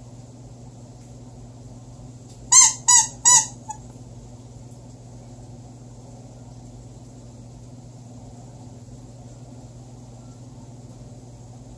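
Three quick squeaks from a squeaky toy gnome being squeezed, about two and a half seconds in, over a steady low hum.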